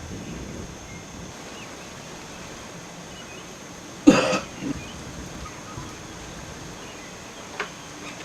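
A person coughs once, sharply, about four seconds in, with a smaller follow-up burst just after, over a steady background hiss. A faint click comes near the end.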